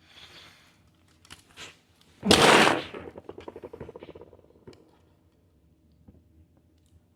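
A loud clatter of plastic Lego pieces being handled about two seconds in, followed by quick small clicks that die away over a couple of seconds, then a few faint taps.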